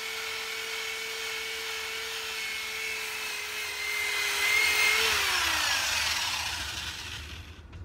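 Corded electric drill with a rust-stripping disc grinding the rust off the inside of an iron kettle: a steady motor whine over a scraping hiss that gets louder about four seconds in. Near the end the trigger is let go and the motor winds down with a falling whine.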